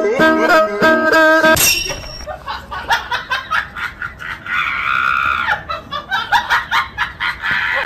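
Plucked-string music for the first second and a half, then a person laughing in short repeated bursts, with a held, higher-pitched cry about halfway through.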